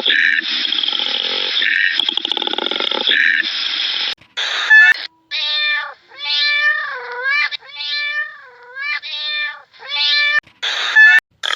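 A domestic cat meowing five times in drawn-out calls that bend in pitch. The first few seconds carry a harsher, raspy call.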